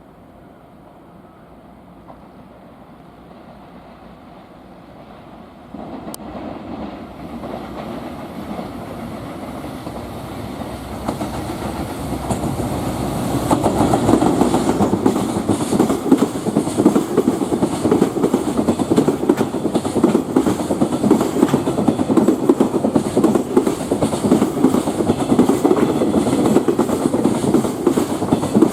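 Freight train approaching and passing close by. Its sound rises sharply about six seconds in and is loudest from about halfway on, as the wagons roll past with rapid wheel clatter over the rail joints.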